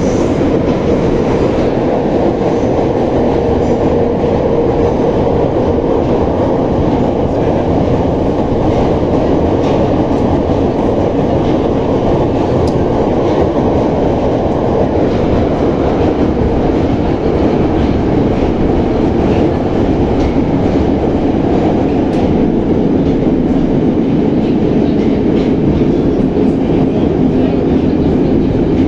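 81-717/714 metro train running between stations: a loud, steady rumble of wheels on rail heard from inside the car. A hum runs under it, and its pitch sits lower in the second half.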